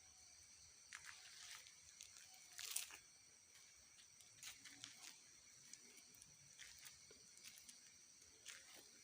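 Quiet night ambience: insects keep up a steady high-pitched trill, with scattered soft crackles and rustles, the loudest about three seconds in.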